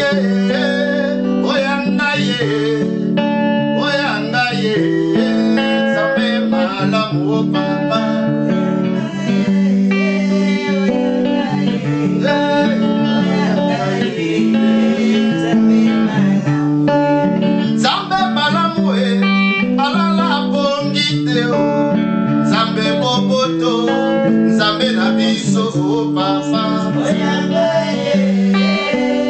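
Electric guitar playing a melodic line over sustained low notes, with a man singing along.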